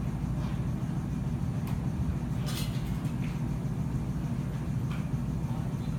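Steady low rumble of room background noise, with a few faint clicks and a brief rustle about two and a half seconds in.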